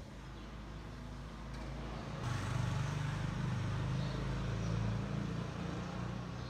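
A motor vehicle passing in the street: a low engine hum with road noise that swells about two seconds in, then fades near the end.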